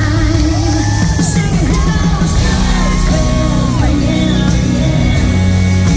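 Live band music with a woman singing the lead, and the crowd yelling and cheering along.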